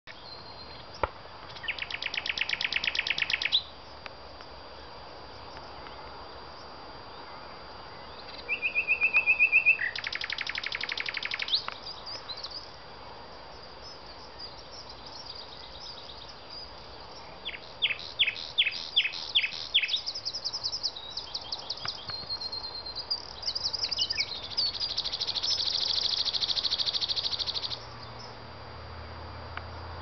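Nightingale singing in separate phrases with pauses between them: fast runs of repeated notes, a held whistle, a series of sharp down-slurred notes, and a long buzzy trill that ends near the end.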